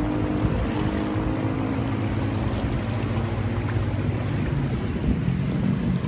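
Fast, shallow snowmelt river rushing over stones in a steady rush, with wind buffeting the microphone and a low hum underneath.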